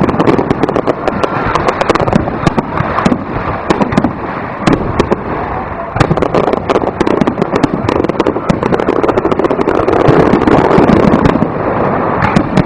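Aerial fireworks display: many shells bursting in rapid succession, a continuous barrage of bangs and crackling.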